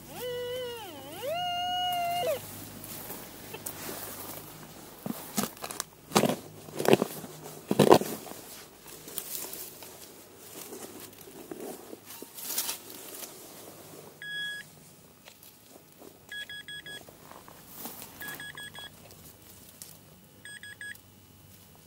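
Metal detector's target tone warbling down and up, then holding a steady higher tone for about a second: a strong signal. Around six to eight seconds in, a trowel scrapes and knocks into the soil, and in the second half come several short bursts of quick, high electronic beeps.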